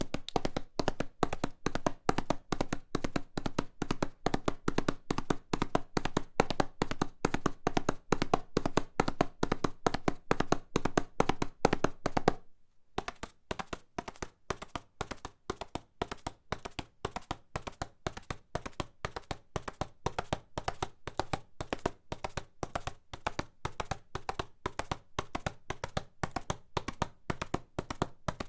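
Horse hooves galloping on a hard surface: a fast, rhythmic clatter of hoofbeats. About twelve seconds in it stops briefly, then carries on quieter.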